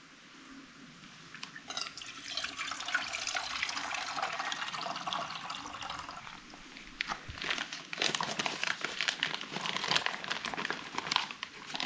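Small wood fire crackling: a steady hiss at first, then denser, sharper crackles from about seven seconds in.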